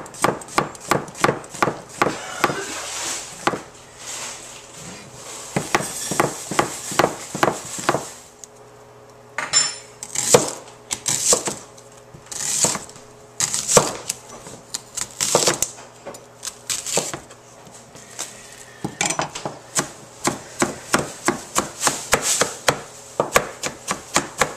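Knife cutting vegetables into thin slices on a cutting board: runs of quick, even chops broken by short pauses.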